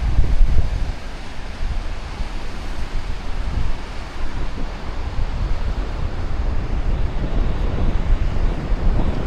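Sea waves washing on the shore under a steady wash of surf, with wind gusting across the microphone in a low, uneven rumble.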